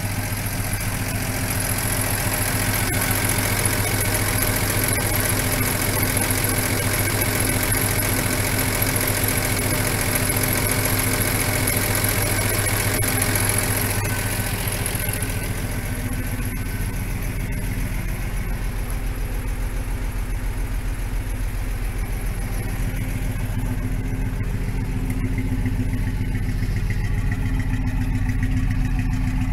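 Jeep Tornado 230 overhead-cam inline-six idling steadily and evenly, fitted with a new timing chain and gears. A higher-pitched whirr fades about halfway through, leaving a steady low hum.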